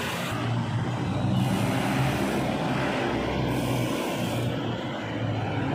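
Road traffic on a city street: car engines running in a steady rush of noise.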